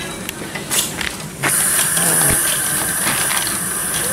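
A few light metallic clicks, then, about a second and a half in, a sudden, steady high hiss of steam escaping from a small live-steam miniature locomotive.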